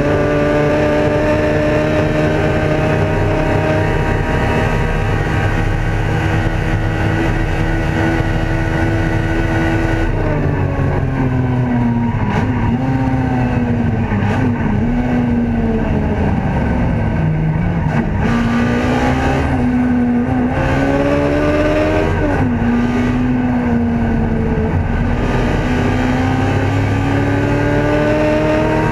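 Ford Escort racing car's engine heard from inside the cockpit under race conditions. The revs hold high for about the first ten seconds, then fall away in several steps as the car slows, and climb again, dipping briefly once near two thirds of the way in before pulling up to the end.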